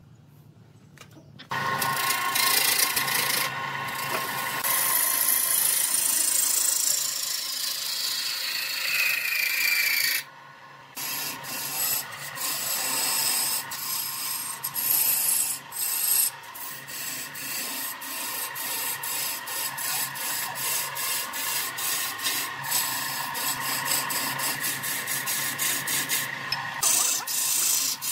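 Wood lathe spinning a log blank while a hand-held turning tool cuts into it, tearing off shavings: a steady scraping cut over the hum of the lathe's electric motor. It starts about a second and a half in, breaks off briefly about ten seconds in, then goes on with rapid clicking from the tool against the wood.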